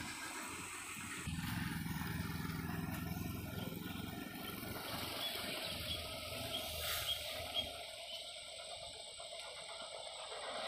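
A vehicle engine running at a steady pitch, fading away about eight seconds in. Faint high chirps sound over it through the second half.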